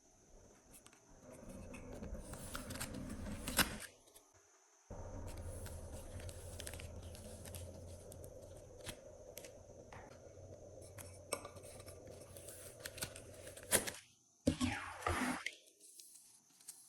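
Glossy slime being mixed and squished: sticky crackling with scattered sharp clicks and pops. The sound breaks off twice, about four seconds in and near the end.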